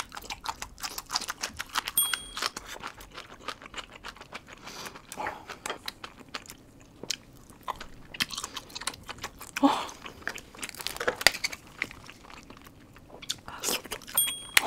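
Close-miked mukbang eating: wet chewing, biting and smacking of seafood and noodles, a dense run of irregular crackling and clicking mouth sounds, sped up to one and a half times normal speed.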